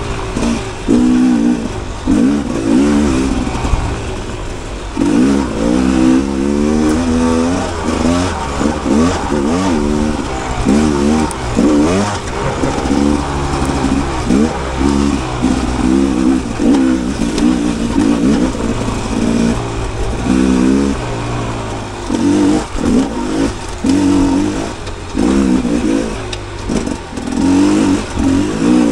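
Rieju MR 300 Pro dirt bike's two-stroke engine being ridden hard, revving up and down over and over as the throttle is opened and closed.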